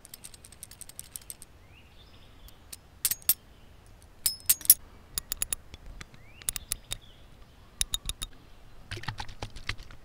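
Small metal objects clicking and clinking right at the microphone, tapped and handled for ASMR: sharp metallic ticks with a brief high ring, coming in quick clusters about every second.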